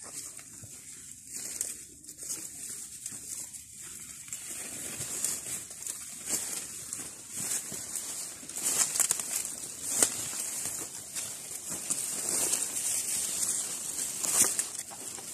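Dry banana leaves and undergrowth rustling and crackling as someone moves through the brush, in irregular short bursts over a steady high hiss.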